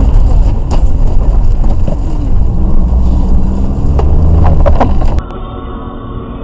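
Car driving at road speed, heard through a dashcam: a loud, steady low rumble of road and engine noise with wind on the microphone. About five seconds in it cuts off abruptly to a quieter, muffled hum.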